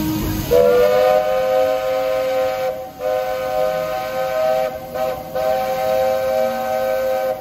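Walt Disney World Railroad steam locomotive's whistle sounding a chord of several notes at once, sliding up slightly as it opens. It gives a blast of about two seconds, a brief break, then a longer blast that dips twice before cutting off.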